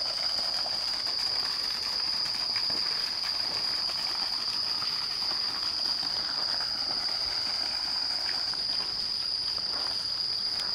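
Chorus of night insects: a steady, unbroken high-pitched drone.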